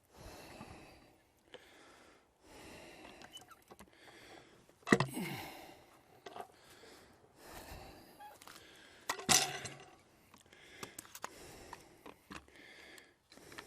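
A man breathing hard from lifting and shifting a heavy log, with two sharp knocks about five and nine seconds in.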